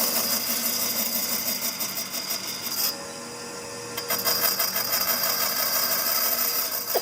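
Power tool working wood, running, pausing about three seconds in, then starting again about a second later.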